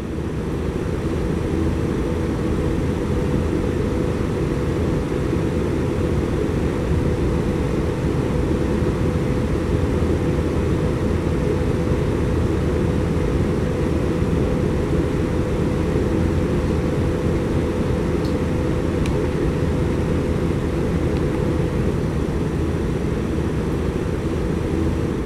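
A steady, even low rumble with a faint hum in it, unchanging throughout and cutting off abruptly at the end.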